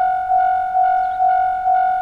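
Japanese railway level-crossing warning alarm ringing its repeated "kan-kan" tone, about two strikes a second, each one sharp at the start and then fading.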